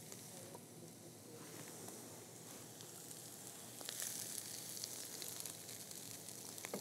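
Faint sizzle of hot stuffing in a skillet, with a spoon scooping filling out of the pan, a few light clicks of the spoon against it from about four seconds in.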